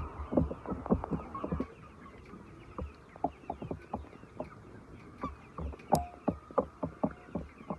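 Chickens, with many short, irregular clucks and taps, and a brief higher call about six seconds in.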